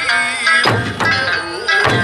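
Okinawan eisa music: a large barrel drum (ōdaiko) struck about every second and a quarter, each stroke a deep boom, under a sung folk melody.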